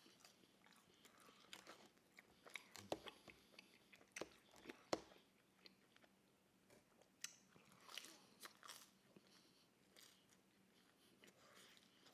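A person chewing and biting pizza close to the microphone: faint, irregular mouth clicks and small crunches, the sharpest about five seconds in.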